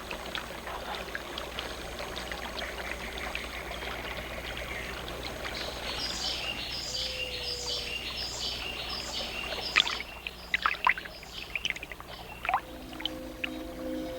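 Running water flows steadily. About halfway in, a high stepped call repeats about twice a second, followed by a few sharp chirps. Soft sustained music tones come in near the end.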